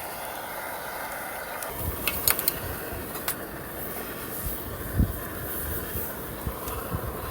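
Gasoline camping stove burning with a steady hiss, with a few sharp clicks about two to three seconds in and a low thump about five seconds in.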